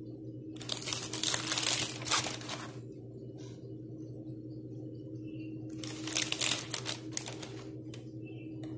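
Paper crinkling and rustling in two bursts of about two seconds each, as baked cheese pide flatbreads are shifted about on the paper lining a woven basket, over a steady low hum.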